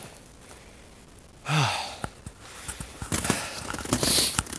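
A man's grunting sigh, falling in pitch, about a second and a half in, followed by hard breathing from the strain of hiking under a heavy loaded pack basket.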